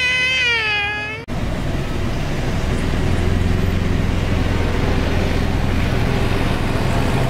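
A small boy's long, high-pitched squeal, which cuts off abruptly about a second in. After it comes a steady roar of road traffic with a low hum.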